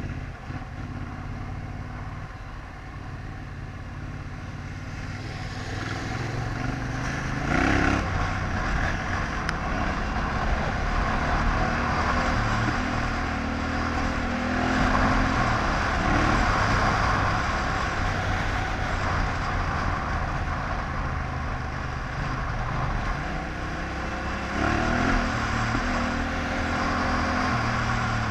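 Yamaha Ténéré 700's parallel-twin engine running under way on a dirt track, heard from the rider's own bike over a steady rush of wind noise. The engine picks up and gets louder about eight seconds in, and its pitch steps up and down several times after that as the throttle and gears change.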